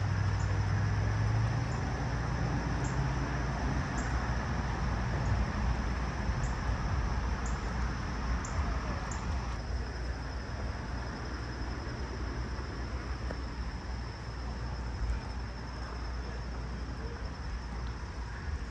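Steady outdoor background: an even low rumble with a faint, steady high hum above it.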